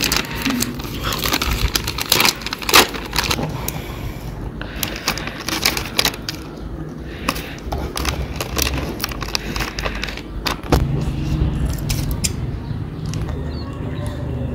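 Crinkling and rustling of a plastic snack packet being handled and filled, with a steel spoon clinking and scraping against a steel pot. About two-thirds of the way through, a steady low rumble sets in.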